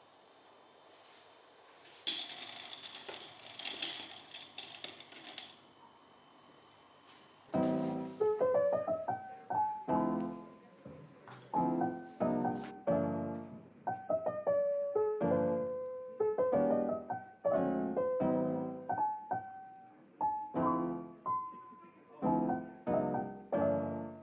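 Gentle piano background music starts about seven and a half seconds in, a melody of separate struck notes. Before it come a few seconds of irregular clattering and rustling.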